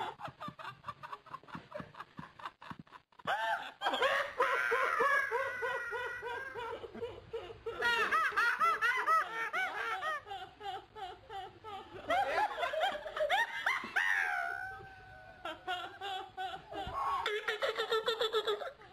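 Human laughter from several different recordings, one after another: a run of quick, short pulses at first, then a new laugh starting abruptly about three seconds in, with further changes of laugh and voice later on.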